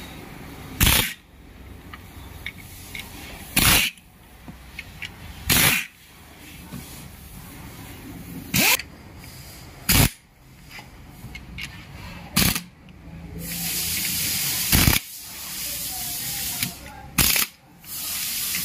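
Short hissing blasts of a pressurised spray, eight in all, coming every two to three seconds, with one longer hiss of about three seconds in the second half.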